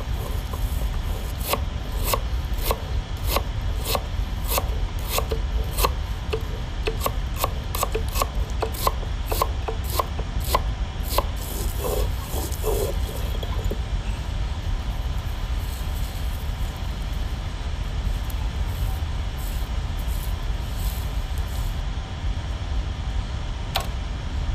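A stone roller grinding spices on a stone slab (a grinding stone), giving rhythmic rasping strokes about two a second for the first ten seconds or so, then softer rubbing.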